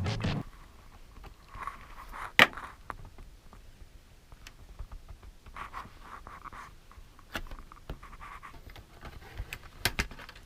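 Hands handling small hard parts: a few sharp clicks, the loudest about two and a half seconds in and a pair near the end, with soft scraping and rustling between.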